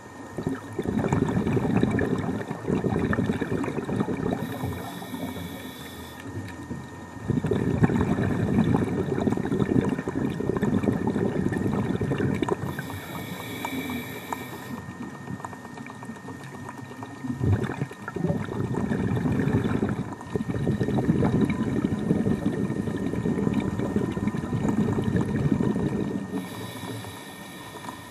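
Scuba diver's breathing through a regulator, heard underwater: long bubbling rushes of exhaled air lasting several seconds. Three times they give way to a quieter inhale with a thin high hiss from the regulator.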